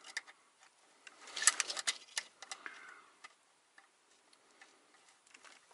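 Small metallic clicks and rattles as a quick-release connector is worked onto a heavy truck's clutch linkage, with a denser run of clicks between about one and a half and two seconds in.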